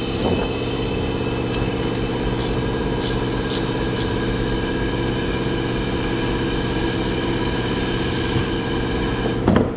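A steady mechanical hum made of several held tones, unchanging throughout, that cuts off abruptly near the end.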